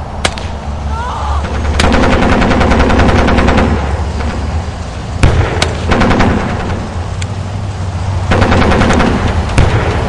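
Trench-warfare battle ambience: three bursts of machine-gun fire, the first about two seconds long and the others shorter, with single sharp gunshots between them, over a steady low rumble of distant battle.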